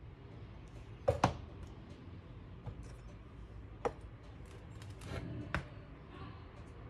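Sharp knocks and clicks of ceramic cups and a bowl being moved and set down on a countertop: a double knock about a second in, the loudest, then single knocks later, over a steady low hiss.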